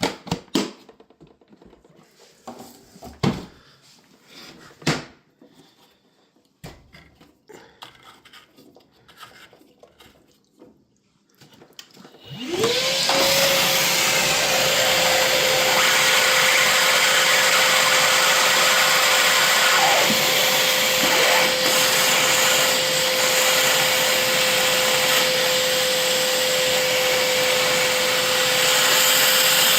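A few scattered knocks and clicks, then about twelve seconds in a vacuum motor switches on, spins up quickly to a steady whine and runs on with loud rushing air, used to suck the standing water out of a washer that won't drain.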